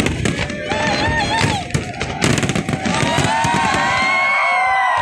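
Fireworks display: shells bursting in rapid bangs and crackles, which merge about halfway through into a steady, dense crackling rush.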